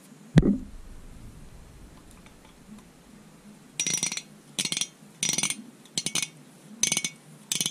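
A single dull thump, then from about halfway a run of short metallic clinks, about one and a half a second: a screwdriver working the idle mixture screw of a Weber 38 DGAS carburettor, winding it all the way in.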